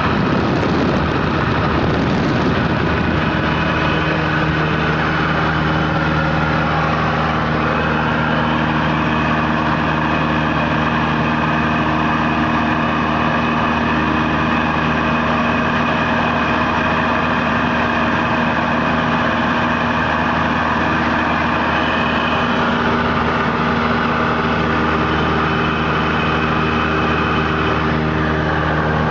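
Cessna 172Q Cutlass's four-cylinder Lycoming O-360 engine and propeller droning steadily in cruise flight, heard inside the cabin with the rush of air over the airframe.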